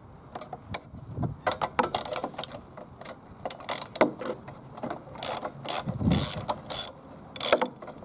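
Spark plug being taken out of an old petrol lawnmower engine: irregular clicking and clinking of a hand tool on metal, with a denser rattle about six seconds in.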